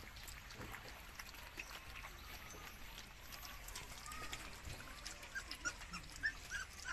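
Belgian Malinois puppies eating kibble together from one bowl: faint quick wet smacking, lapping and crunching clicks, with a run of short high chirps, about three a second, near the end.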